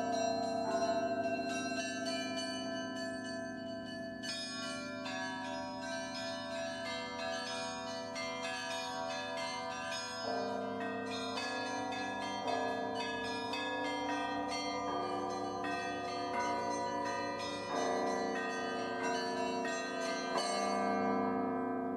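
Church bells ringing: many bells struck in quick succession over deeper, long-ringing tones.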